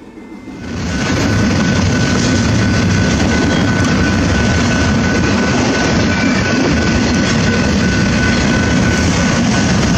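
Norfolk Southern diesel locomotive and double-stack intermodal container train passing close by: a steady, loud rumble of engine and rolling wheels that swells up about a second in, with a thin steady whine above it.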